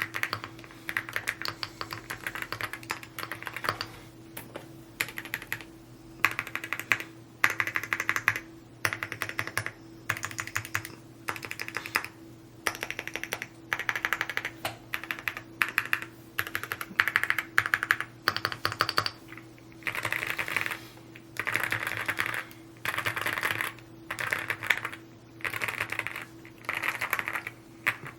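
Typing on a Rainy75 mechanical keyboard: fast runs of key clicks in bursts of a second or two, with short pauses between words and phrases.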